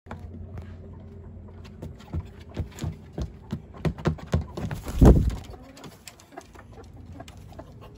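Decrowed rooster moving about its coop: a run of sharp taps and scuffs, then a louder short rushing burst about five seconds in, when it gets from the tub up onto a perch.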